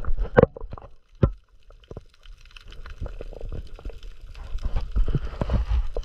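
Muffled underwater sound from a camera carried by a freediver spearfishing: a low rumble of water moving against the camera, with scattered knocks and clicks.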